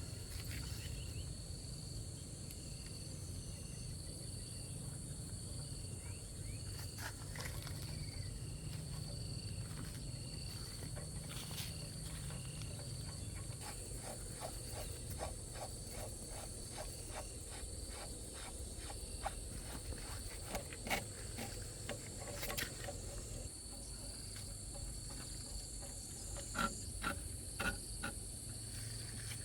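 Steady high-pitched drone of insects with a low background hum, broken by scattered light clicks and taps, including a quick run of ticks about halfway through.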